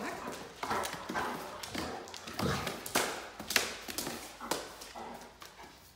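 A Great Dane's paws and claws tapping, scrabbling and thudding irregularly on a hard stone-tile floor as it runs and turns.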